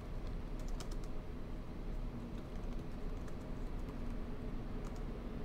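Computer keyboard keys tapped in a few short clusters, about a second in, around the middle and near the end, over a steady low hum.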